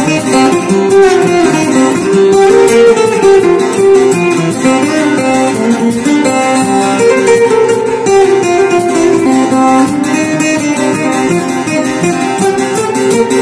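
Taylor GS Mini acoustic guitar played fingerstyle with a slide, some notes gliding in pitch among quickly picked strings.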